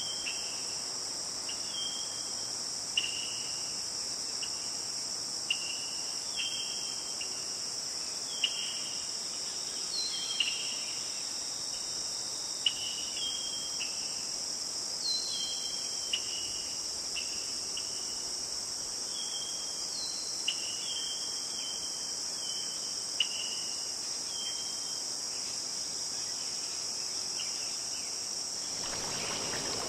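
A steady, high, shrill insect chorus, with short falling chirps repeating every second or two and a few sharp clicks. Near the end a rushing of running water sets in.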